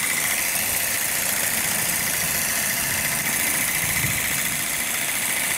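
Bosch ASB 10.8 LI cordless grass shear running steadily, its battery motor driving the reciprocating blades as it cuts grass.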